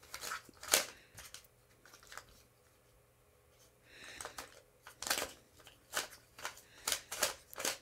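Plastic Container Cube, a Skewb-type twisty puzzle, being turned by hand: scattered sharp plastic clicks as its pieces snap round, a pause of about two seconds in the middle, then a quicker run of clicks near the end.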